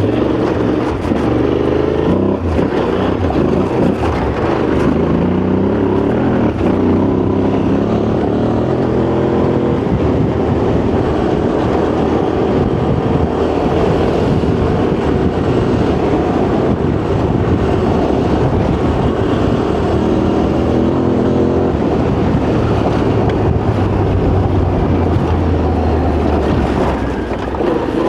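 Yamaha Ténéré 700's parallel-twin engine running under way, its revs rising and falling again and again through the gears, over a constant rush of wind and tyre noise.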